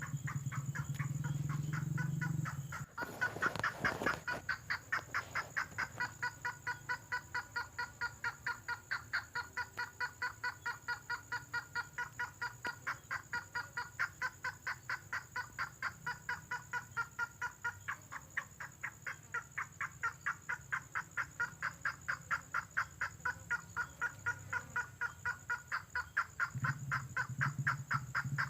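Lure recording of tengkoah merah bird calls: a fast, even run of short repeated notes, about three to four a second, with a low droning call heard at the start and again near the end. A single sharp click comes about three seconds in.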